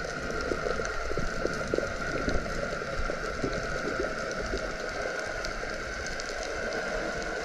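Underwater ambience: a dense crackle of tiny clicks over a steady hiss.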